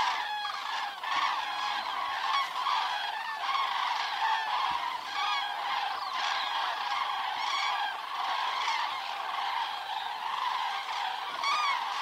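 Flocks of common cranes calling in flight: a dense, continuous chorus of many overlapping bugling calls.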